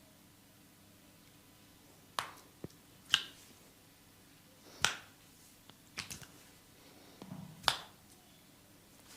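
Sharp, dry cracks made during a hands-on massage, about six of them spread irregularly from about two seconds in, the loudest around three seconds in and near the end, with quiet between them.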